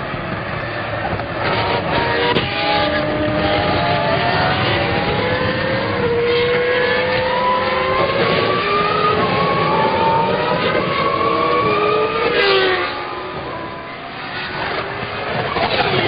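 McLaren formula 1 car's 3.0-litre Mercedes V10 at racing revs, its pitch climbing again and again as it pulls through the gears. About twelve seconds in the pitch falls sharply and the sound drops off as the car slows, then it picks up again near the end.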